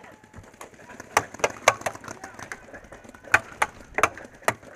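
Pump paintball markers firing, with sharp cracks of shots and balls striking coming in quick groups of two or three, about eight in all.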